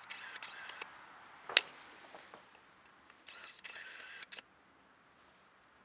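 A camera's lens motor whirring in two short spells as it refocuses, with one sharp click about a second and a half in.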